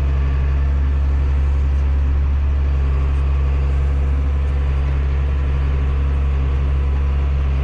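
Combine harvester running steadily while harvesting soybeans, a constant low engine and machine drone heard from inside the cab.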